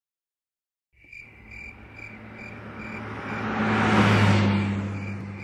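Crickets chirping in a steady rhythm, about two chirps a second, starting about a second in, while a vehicle passes, swelling to its loudest about four seconds in and then fading.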